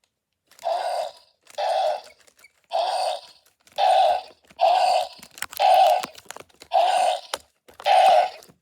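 Eight short dinosaur roars, evenly spaced about a second apart, each lasting about half a second.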